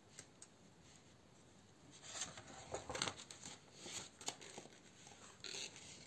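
A page of a spiral-bound colouring book being turned: faint paper rustling and crinkling with light clicks, starting about two seconds in.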